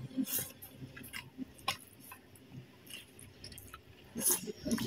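A person eating beef spaghetti close to the microphone, chewing and slurping noodles. It comes as a handful of short wet clicks and smacks, the loudest a cluster about four seconds in.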